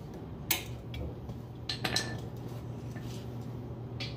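Metal-on-metal clicks and clinks of a driver turning the range-adjustment nut on a well pump pressure switch, raising its setting from 30-50 to 40-60 psi. A few separate sharp clicks come over a low steady hum.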